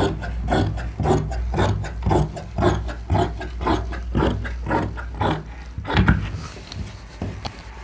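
Large tailor's shears snipping through white cloth along a chalk line, a quick run of rasping cuts about three a second that tails off about six seconds in.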